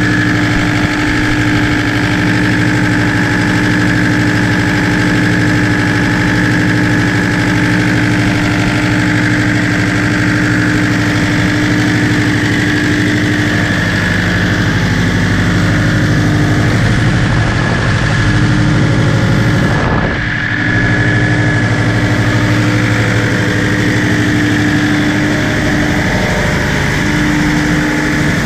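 Caterpillar C18 electronically injected inline-six marine diesel running steadily in a boat's engine room, a loud even drone with a steady hum. About two-thirds of the way through, the sound is briefly muffled.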